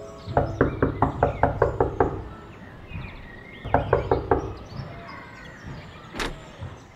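Knocking on a door: a quick run of about nine knocks, a pause, then a shorter run of about five knocks, followed by a single click about six seconds in.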